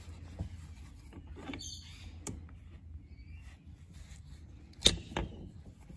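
A few light metal clicks and clinks as the spider and side gears are worked out of an open differential carrier and laid down on a rag, the loudest pair of clinks near the end, over a low steady hum.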